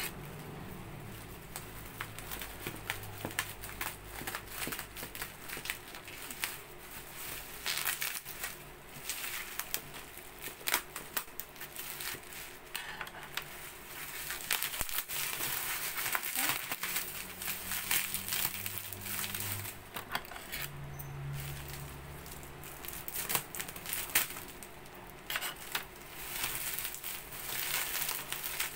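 Plastic bubble wrap crinkling and rustling as a package is pulled open and unwrapped by hand, with many scattered sharp crackles.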